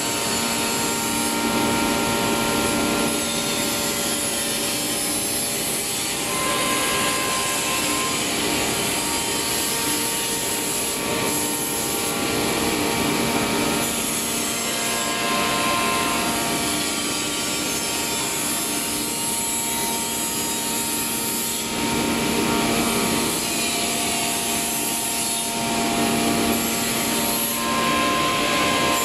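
Spindle of a CF-DZ1625ATC1 CNC wood router cutting a circular ring from a wooden panel: a steady whine over the noise of the bit in the wood, swelling now and then as the cutter moves along the cut.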